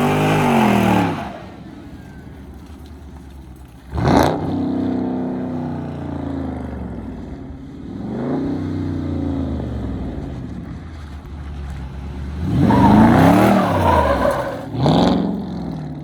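Dodge Charger engine revved repeatedly through a loud aftermarket exhaust: a run of throttle blips, each rising and then falling in pitch, with a sharp sudden rev about four seconds in, the loudest rev around thirteen seconds and another quick blip near the end.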